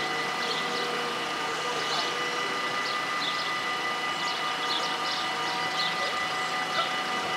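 Dutch level-crossing warning bells ringing continuously, several bells together making a steady ringing drone, as the crossing stands closed for an approaching train.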